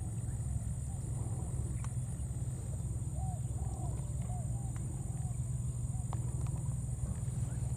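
Short arched animal calls in quick runs of three or four, over a steady low rumble and a thin, steady high whine.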